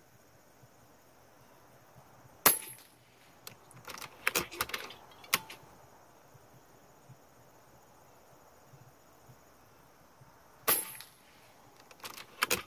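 A suppressed FX Crown MKII .30-calibre PCP air rifle fires twice, about eight seconds apart, each a sharp crack. Each shot is followed within a few seconds by a run of small metallic clicks as the action is cycled to load the next pellet.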